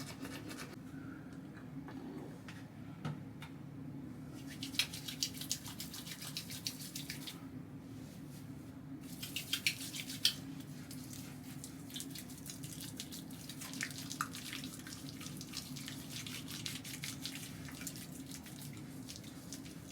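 Bathroom sink tap running, with water splashing in several bursts as it is scooped and used.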